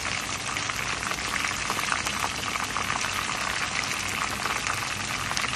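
Chicken pieces deep-frying in a wok of hot oil: a steady, dense crackling sizzle.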